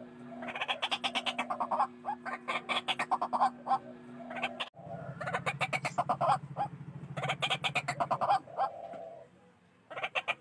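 White-breasted waterhen calling: repeated bursts of rapid, harsh notes, about ten a second, each burst lasting a second or so with short gaps between.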